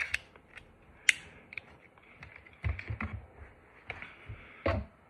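Glock 42 .380 pistol being handled: scattered, irregular plastic-and-metal clicks, a small cluster of them midway and a louder knock near the end.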